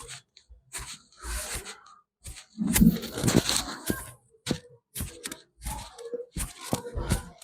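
Barber's hands working a customer's head and scalp in a head massage: irregular rubbing and patting strokes on skin and hair, with a few sharp clicks among them, the strokes busiest about three seconds in.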